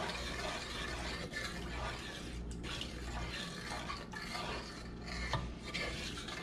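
Wooden spoon stirring sugar into water in a saucepan, scraping around the bottom and sides of the pan in repeated strokes, dissolving the sugar for a syrup.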